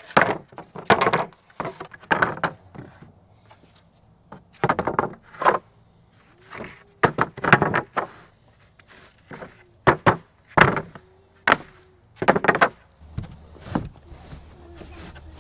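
Pressure-treated wooden fence pickets being laid down and shifted on sawhorses, knocking and clattering against each other and the sawhorses in irregular clusters with short pauses between.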